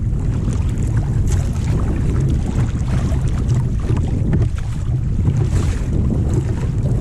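Wind buffeting the microphone with a steady low rumble, over irregular splashing and slapping of choppy water against a kayak's hull.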